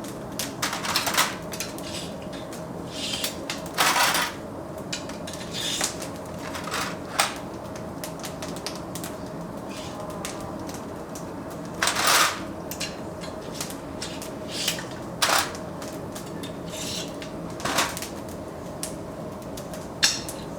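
Kitchen clatter: irregular clinks and knocks of utensils and dishes, a dozen or so spread unevenly, over a steady machine hum.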